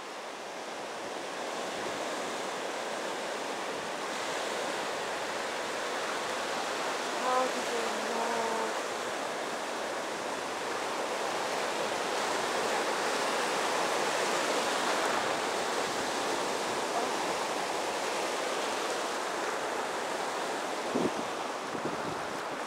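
Small surf waves washing in over the sand at the water's edge: a steady rush of water that swells a little toward the middle.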